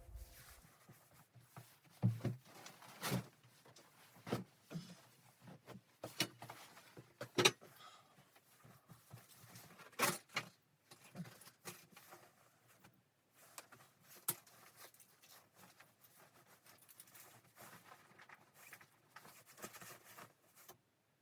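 Scattered light clicks and knocks at irregular intervals, the sound of objects being handled, with the strongest knocks about two, three, seven and ten seconds in.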